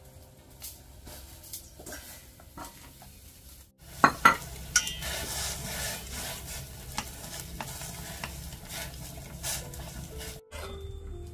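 A few sharp knocks of a utensil on a pan about four seconds in, then food sizzling steadily in a hot pan while it is stirred, stopping abruptly near the end.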